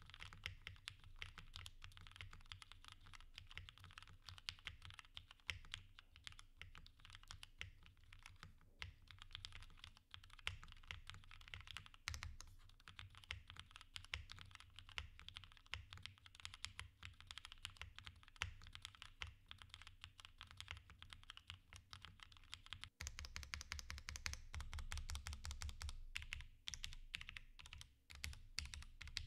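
Continuous fast typing on a Matrix 6XV 3.0 Corsa mechanical keyboard with lubed Cherry MX Black Hyperglide linear switches, foam-dampened plate and GMK keycaps: a dense patter of keystrokes. After a brief pause about two-thirds of the way in, the keystrokes come louder and deeper for a few seconds.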